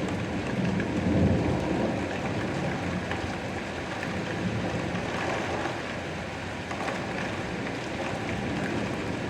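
Steady rain falling, with a low rumble swelling about a second in and fading over the next second.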